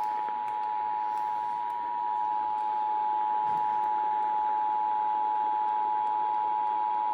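Emergency Alert System two-tone attention signal (853 and 960 Hz sounding together) heard over AM/FM radio, a steady unbroken tone over faint hiss. It is the alarm that comes before a spoken emergency alert, here a severe thunderstorm warning.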